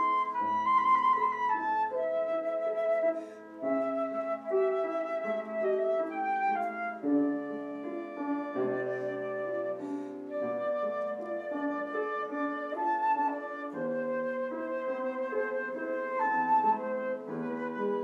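Concert flute playing a melody of held notes with vibrato, accompanied by a grand piano.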